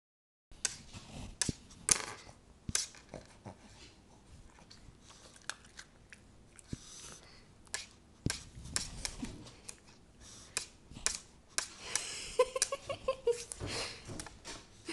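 A small dog's claws clicking and tapping on a wooden tabletop as it paws and noses at a bone-shaped dog biscuit, with short sniffs. About twelve seconds in comes a short, wavering high whine.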